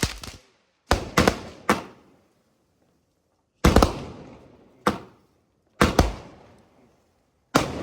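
60-shot aerial firework cake firing: about nine sharp bangs in clusters of two or three, each trailing off over about a second, with short silent gaps between clusters.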